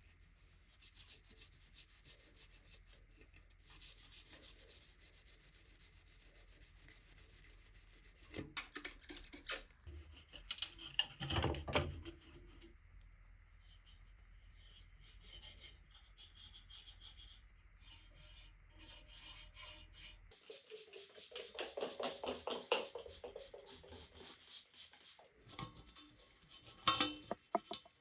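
Rubbing and scraping by hand in quick repeated strokes, as in cleaning, sanding or polishing a part, in several separate stretches that start and stop abruptly.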